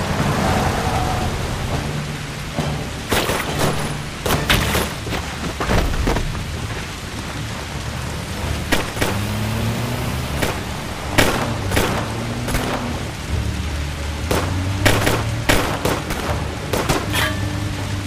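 Film soundtrack mix: heavy rain with a string of sharp gunshot cracks scattered through it, over a low, held dramatic music score.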